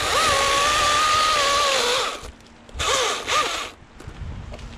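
Husqvarna T540i XP battery-powered top-handle chainsaw cutting the face notch in a tree: a steady motor whine that sags slightly under load and cuts off after about two seconds, then a second, shorter burst about three seconds in.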